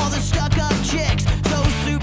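Rock music with guitar and drums keeping a steady beat.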